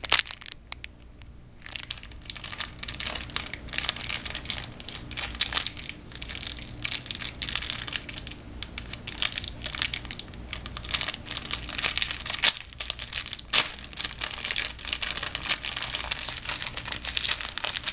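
Small clear plastic bag crinkling and crackling in the hands as earrings are unwrapped from it, a dense run of small irregular crackles that starts after a short lull.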